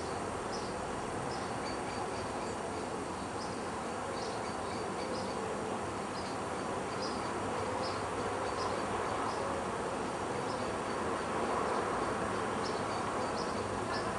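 Steady outdoor hiss with short, high chirps repeating irregularly, roughly once a second.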